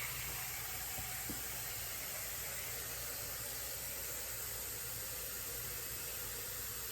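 Running water from a tap, a steady, even hiss that starts abruptly.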